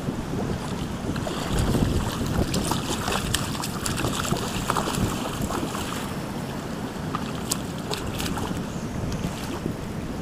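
Wind buffeting the microphone over the rush of a shallow creek, with scattered splashes from a hooked steelhead thrashing at the surface near the angler's feet.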